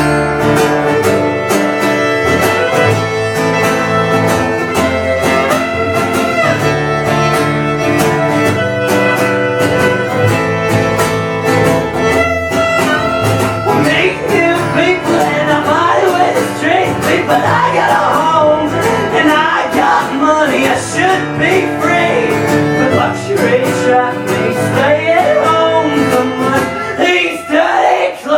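Live band playing a country-style tune with guitar and a steady drum beat; about halfway through, a wavering lead line, like a fiddle, comes to the fore.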